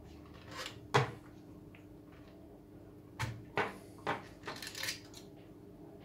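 Clicks and knocks of hard plastic parts being handled as a small DC motor is taken out of a 3D-printed toy washing machine: one sharp click about a second in, then a cluster of clicks and rattles from about three to five seconds in.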